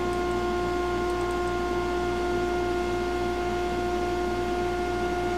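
Hobby CNC router sitting idle and powered, giving off a steady motor whine with a stack of overtones and a faint low pulsing hum beneath it.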